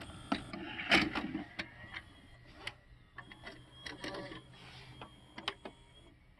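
A VHS cassette pushed into a VCR and drawn in by the loading mechanism: a clunk about a second in, then a steady motor whine with scattered clicks as the tape is loaded. The mechanism is running on a freshly replaced drive belt.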